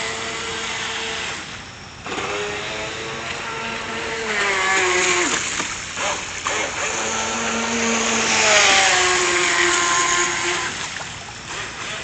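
Radio-controlled Pro Boat Impulse 26's brushless electric motor whining as the boat runs across a pool, its pitch rising and falling with the throttle. A hiss comes in over it, loudest about eight to nine seconds in.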